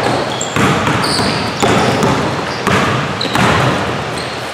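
Basketball dribbled on a hardwood gym floor, bouncing about once a second and echoing in the hall, with a few short high squeaks of sneakers.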